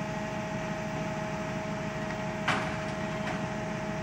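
Compactor garbage truck idling with a steady, even hum, and one short sharp knock about two and a half seconds in, with a fainter one just after, from a broom and dustpan sweeping up broken glass.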